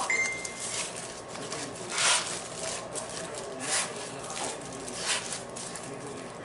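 Aluminium foil crinkling and rustling as a foil-wrapped fish roll is rolled back and forth on a wooden cutting board by hands in plastic gloves, in short swishes about every one to one and a half seconds.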